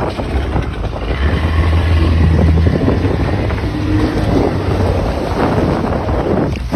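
Wind buffeting the microphone, with a steady low hum underneath that is strongest for a couple of seconds about one second in.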